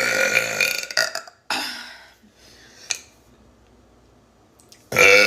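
A person burping loudly: a long, drawn-out burp is already under way and ends about a second in, and another loud burp starts near the end.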